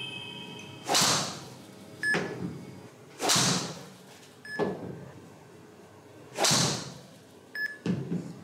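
Golf driver shots into an indoor practice net: three loud, sharp club-on-ball strikes, each with a short ringing tail, with softer knocks between them.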